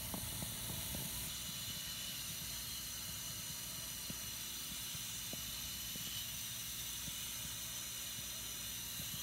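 Steady hiss of water running through a toilet's slowly opened supply shut-off valve and fill line, with a few faint ticks.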